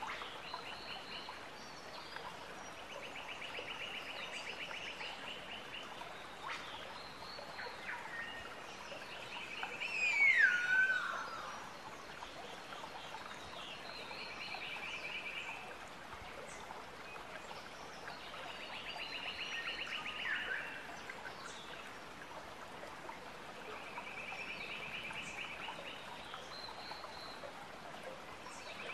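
Outdoor animal calls: a high pulsed trill a second or two long, repeating every few seconds. About ten seconds in comes one loud call that falls steeply in pitch, the loudest sound here.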